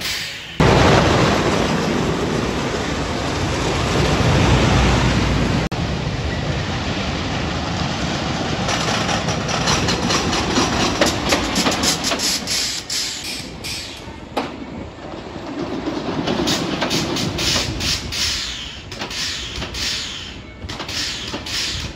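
Wooden roller coaster trains running along the track, a loud rumbling rattle with fast, dense clacking of the wheels. The sound cuts abruptly between passes a few times.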